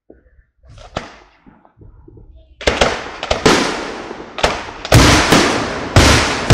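Aerial fireworks shells launching and bursting. After a quieter start, a rapid series of loud bangs begins about two and a half seconds in, each trailing off in an echoing rumble.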